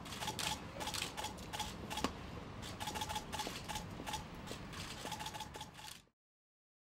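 Outdoor street ambience thick with quick sharp clicks and taps and a steady tone that comes and goes; it cuts off to silence about six seconds in.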